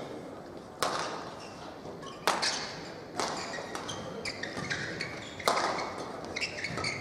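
Badminton rackets smacking a shuttlecock, four sharp hits at uneven spacing that echo around the sports hall, with smaller clicks and short high squeaks of shoes on the court between them.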